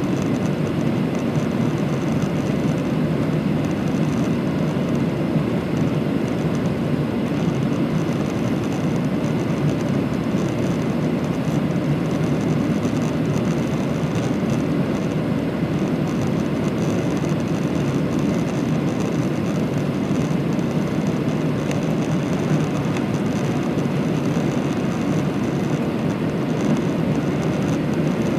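Steady cabin drone of a Boeing 737 climbing out after takeoff, heard from a seat over the wing: jet engine noise and rushing air, unchanging throughout.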